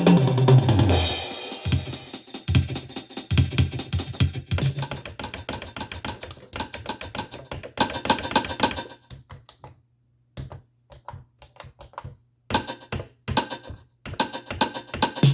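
Roland CR-1000 drum machine playing a drum pattern run through effects. It opens with a deep hit whose pitch falls, then fast repeated hits. Around the middle the pattern thins to sparse clicks with short gaps, and near the end the full beat comes back.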